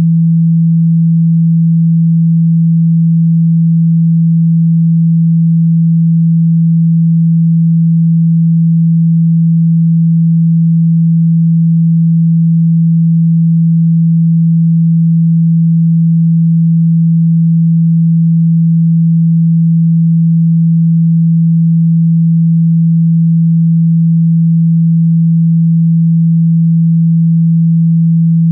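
Steady 165 Hz sine tone, one low pure pitch held unchanged in pitch and level: a test tone played to shake water out of a phone speaker.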